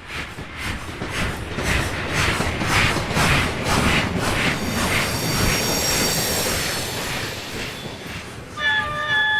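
Steam locomotive working hard, its exhaust chuffing in a steady beat of about two and a half beats a second, growing loud as it comes close. High thin squeals follow in the middle, and near the end a steam whistle sounds with several tones at once.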